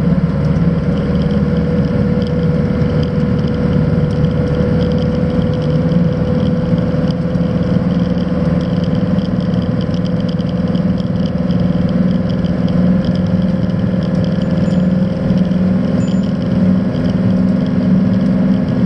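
Campervan engine running at steady road speed through a broken, wire-and-tape-patched exhaust, a continuous drone heard from inside the cab. The exhaust is leaking fumes into the cab.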